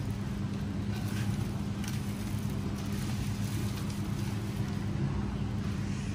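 Steady low machinery hum, with a few faint knocks and scrapes of a knife slicing salmon fillets on a plastic cutting board.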